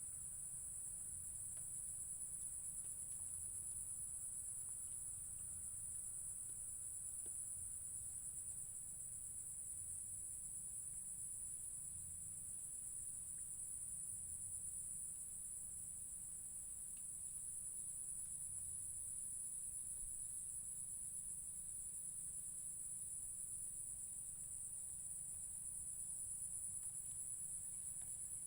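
A steady, high-pitched insect chorus trilling without a break, with a faint low rumble underneath.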